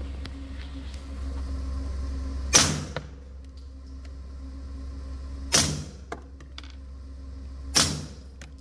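Suppressed firearm firing three shots about three and two seconds apart, each with a short echo off the range. After each shot the action stays out of battery, which the shooters put down to the suppressor.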